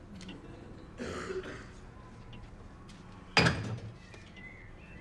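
A short rustle, then a single sharp bang about three and a half seconds in, with a brief ringing tail.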